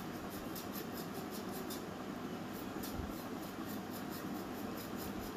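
A silicone spatula stirring and scraping thick masala and beef liver pieces around an aluminium pan, over a steady frying hiss with many faint, quick crackles.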